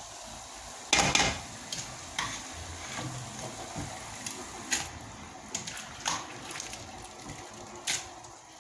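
A pot of plantain and beans potage being handled and stirred: a loud clatter about a second in, then scattered light knocks and scrapes of a utensil against the pot over a faint bubbling hiss.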